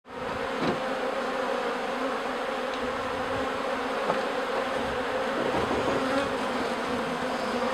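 Steady buzzing hum of a 3-pound package of honey bees, a dense cluster inside a screened wooden shipping cage, with a few faint clicks.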